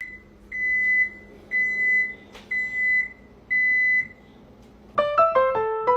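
A high electronic beep, about half a second long, repeating once a second four or five times. About five seconds in, piano music starts with a run of quick descending notes.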